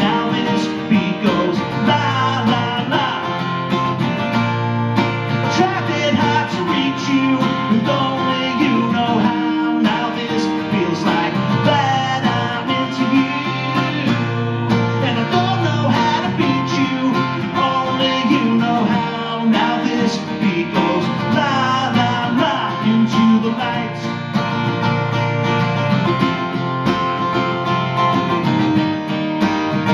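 Acoustic guitar strummed steadily, playing the chords of a song live.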